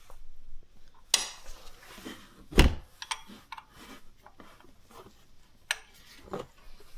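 Metal tools and parts clinking and knocking in irregular sharp clicks, with one heavier knock about two and a half seconds in.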